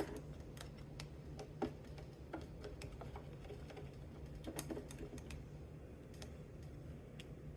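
Light, irregular clicks and small scrapes of a cleaning tool against the sewing machine's bobbin area as lint and thread buildup are picked out, over a faint steady hum.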